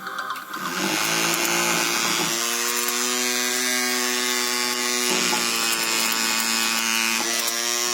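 Small toy DC motor of a homemade model jet engine running at a steady speed, a buzzing whine that holds one pitch.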